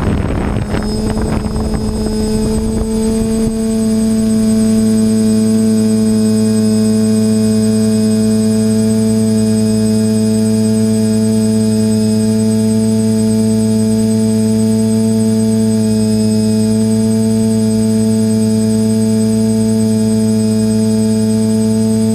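Rushing noise fades out over the first few seconds as a sustained electronic drone chord swells in and then holds steady, unchanging in pitch, as background music.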